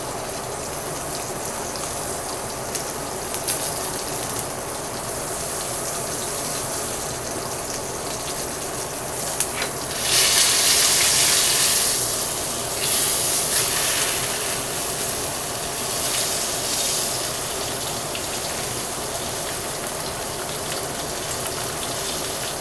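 Brown-sugar-rubbed pork loin searing in a hot pan, sizzling steadily, with louder surges of hissing about ten seconds in and twice more a few seconds later as the meat is turned onto another side.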